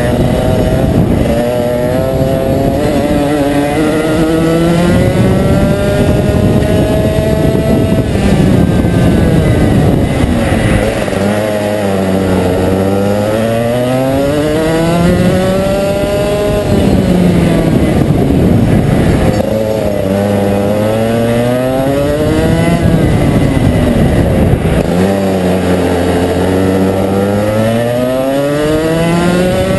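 Rotax 125cc two-stroke single-cylinder kart engine at racing speed, heard onboard. It climbs steadily in pitch for several seconds on each straight, then drops sharply as the kart slows for a corner, about four times over.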